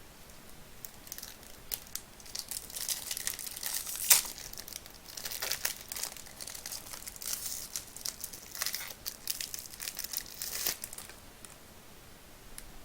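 Topps Chrome trading-card pack wrapper being torn open and crumpled by hand: a run of crinkly, crackling rustles with one sharp, loud crack about four seconds in.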